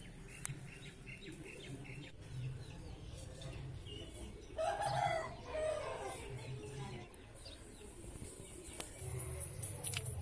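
A single animal call, about a second long, near the middle, over a faint low hum.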